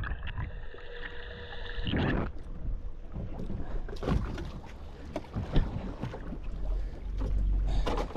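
Wind on the microphone aboard a small fishing boat at sea, with scattered knocks on the boat and a thump about two seconds in; a strong gust of wind rumble near the end.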